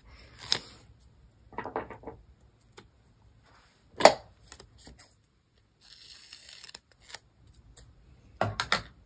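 Paper handling: a sticky note and planner stickers being peeled, shifted and pressed onto the page, with scattered small clicks and rustles and one sharper tap about four seconds in.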